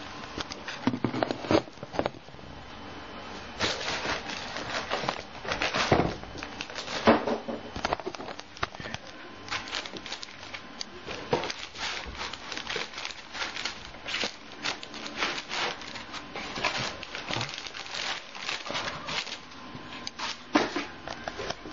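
Plastic wrapping and foam packing crinkling and rustling as a laptop is unwrapped by hand: a dense run of irregular crackles.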